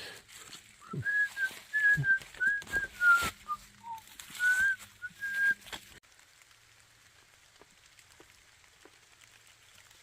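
A person whistling a tune in short held notes while walking, with scattered knocks of footsteps. The whistling cuts off about six seconds in, leaving faint rain.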